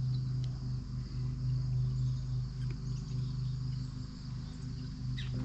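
Crickets and other insects chirring steadily in an evening chorus, over a steady low hum.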